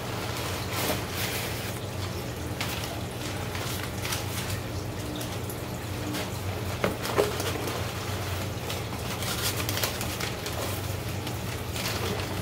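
Cardboard and packing material rustling and clicking as a shipping box of fish is unpacked by hand, over a steady low hum with trickling water from aquarium equipment. One sharper click about seven seconds in.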